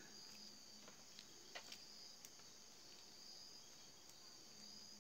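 Near silence: room tone with a faint steady high-pitched whine and a few faint, short clicks.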